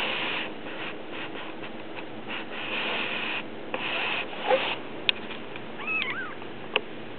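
Rustling and rubbing on bed covers as week-old kittens move and are handled. About six seconds in comes one short, thin kitten mew, and there are a couple of small sharp clicks.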